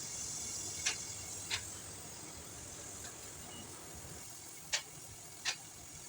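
Brazing torch flame hissing steadily on copper refrigerant pipe fittings, with four short, sharp metallic clicks, two about a second in and two near the end.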